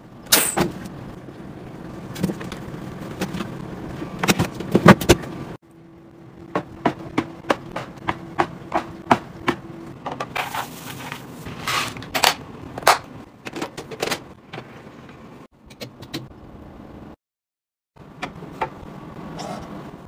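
Clear plastic storage bins and fridge drawers being handled: a run of slides, knocks and sharp plastic clacks and taps, one after another. Near the end there is a brief silence.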